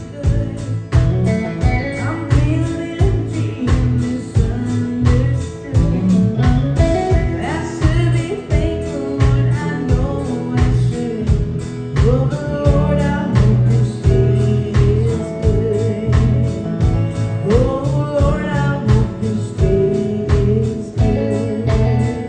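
Live country band playing a slow song with a steady drum beat, acoustic and electric guitars, and a woman singing the lead through a vocal microphone and PA.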